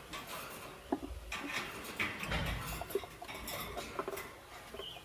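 Lovebirds making a run of sharp clicks, taps and scratching, with a brief chirp near the end.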